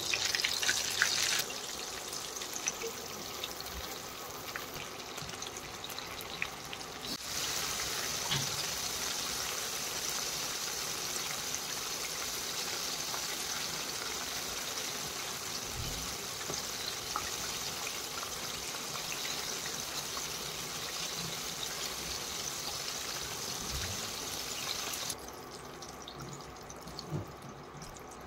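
Battered chicken lollipops deep-frying in hot oil: steady sizzling and bubbling, loudest in the first second or so as a piece goes into the oil. The sizzle steps up about seven seconds in and drops to a quieter bubbling a few seconds before the end.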